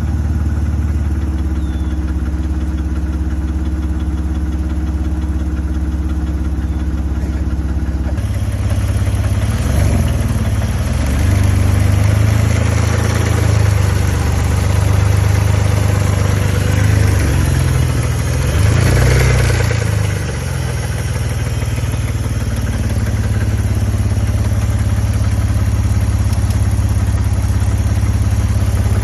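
BMW E60 530i's 3.0-litre straight-six running with rod knock from a spun rod bearing. It idles, is revved up and down several times from about eight seconds in until about twenty seconds, then settles back to idle.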